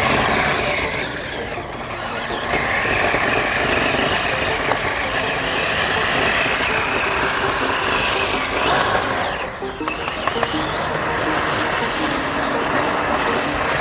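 Electric motor and gearing of a 1/12 Kyosho Blizzard RC vehicle whining as it drives, the pitch rising and falling with the throttle over a steady rough running noise. The motor briefly eases off about nine and a half seconds in, then winds back up.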